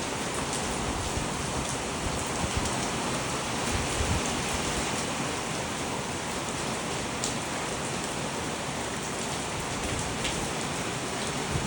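Steady, heavy rain falling and pattering on surfaces, with scattered individual drops ticking through the even hiss.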